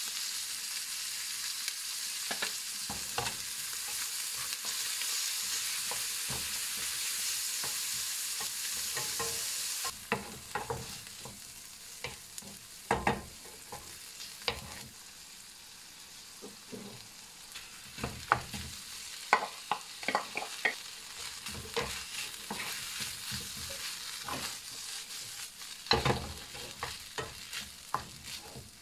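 Diced chicken and onion sizzling in a frying pan, a steady hiss. About ten seconds in the sizzle drops, and a wooden spatula scrapes and knocks against the pan in short irregular strokes as the food is stirred.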